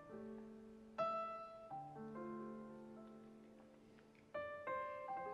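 Slow background piano music, with chords struck about a second in and again past four seconds and left to ring out.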